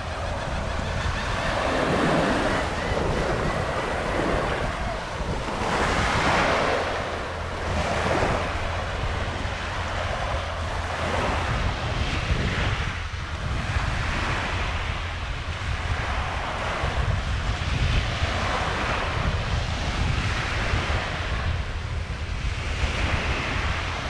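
Small waves washing up on a sandy beach, the wash swelling and fading every couple of seconds, over a steady rumble of wind on the microphone.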